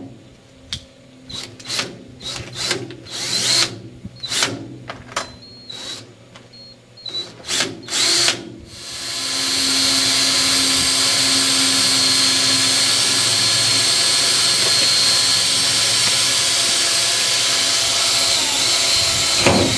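DeWalt cordless drill boring a pilot hole through the steel lid of a 20 mm ammo can. For the first eight seconds or so it runs in short starts and stops, then drills steadily for about ten seconds and cuts off suddenly near the end.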